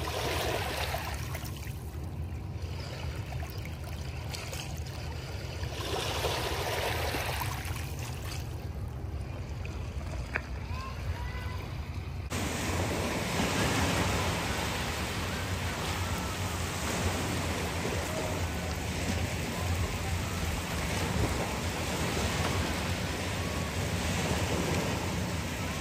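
Small lake waves lapping and washing over a shallow pebble shore, swelling every few seconds; about halfway through the wash turns fuller and steadier.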